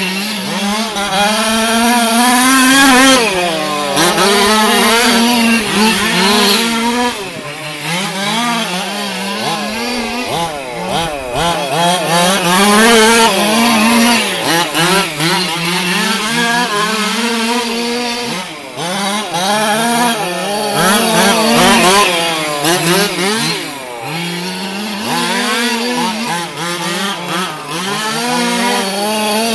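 Small two-stroke petrol engine of a 1/5-scale HPI Baja-based RC car running under throttle, its pitch rising and falling every few seconds as it speeds up and backs off around the oval.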